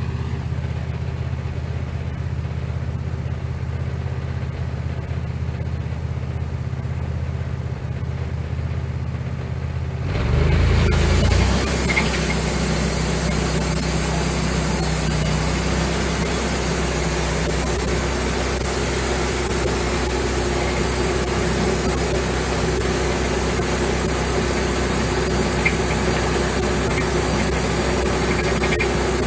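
Wood-Mizer LX150 bandsaw mill's engine running steadily. About ten seconds in it revs up, and a loud, steady sawing hiss begins as the band blade cuts into a green sweetgum log for the first slab.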